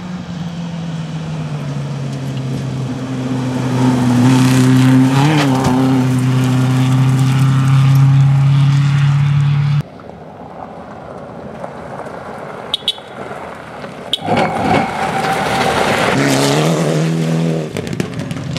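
Rally cars running flat out on a gravel stage. An engine held at high revs grows steadily louder, then cuts off abruptly about ten seconds in. A quieter stretch follows with two sharp cracks, then another engine swells up loud with a gravel-like rush of noise.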